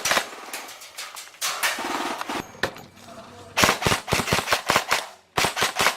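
Airsoft guns firing: a few scattered shots at first, then a rapid burst starting a little past halfway through and another running into the end.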